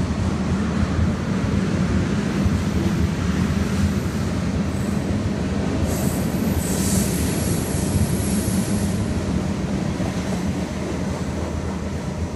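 CSX freight train's tank cars and hoppers rolling past, wheels rumbling on the rails, with a high wheel squeal for a few seconds around the middle. The sound eases off slightly near the end as the last car goes by.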